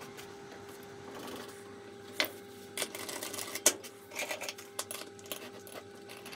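Small metal clicks, knocks and rattling as a drill chuck is fitted into a mini lathe's tailstock and handled, starting about two seconds in, with sharper knocks near 2 and 3.5 seconds. A faint steady hum runs underneath.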